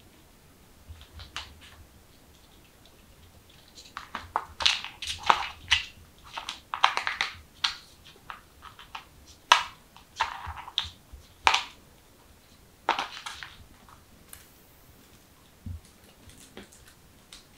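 Kittens scrabbling and playing: a run of short scratchy rustles and clicks of claws on a wooden floor, a rug and a wicker basket, busiest in the middle, with one low thump near the end.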